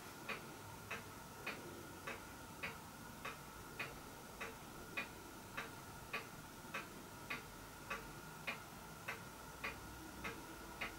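Faint, even ticking, a little under two ticks a second, like a clock, over a faint steady high whine.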